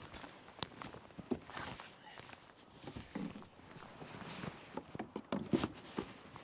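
Irregular knocks, taps and scuffs with short hissing swells: fish and fishing gear being handled in a kayak.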